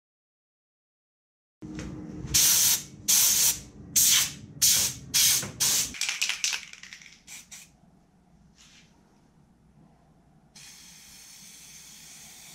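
Aerosol spray paint can: a quick run of short, loud bursts over a low rumble, then after a lull a steady spray hiss starting near the end.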